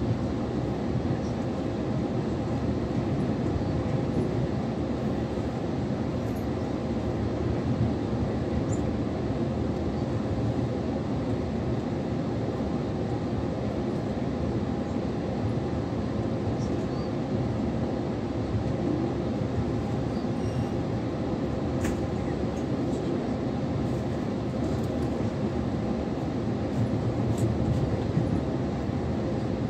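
Passenger train running at speed, heard from inside the carriage: a steady rumble of wheels and running gear with no clear beat, broken only by a few faint ticks.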